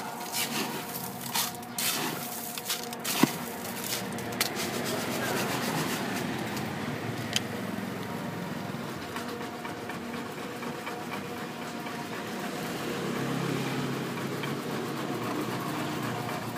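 Hands rummaging in an ice chest of crushed ice, bottles and cans, making a string of sharp knocks and clinks over the first few seconds. Steady street traffic noise runs underneath.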